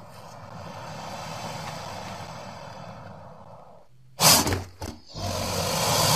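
Crocodilian hissing: a breathy rush that slowly fades over about four seconds. Then a sudden loud short blast with a couple of quick after-pulses, and a long hiss that builds again toward the end.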